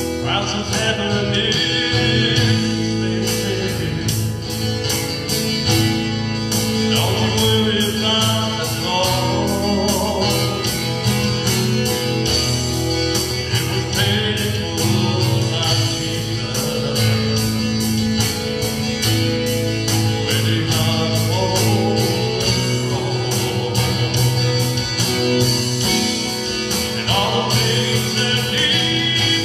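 A man singing a gospel song, accompanying himself on an acoustic guitar strummed in a steady rhythm.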